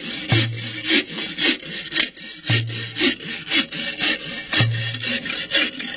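Yoreme deer-dance music: notched wooden rasping sticks (raspadores) scraped in a brisk, steady rhythm, two to three strokes a second, with a short low boom about every two seconds.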